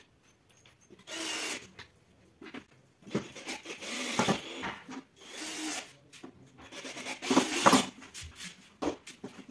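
Cordless drill driving screws into flat-pack furniture panels in several short bursts of about half a second to a second each, with pauses between.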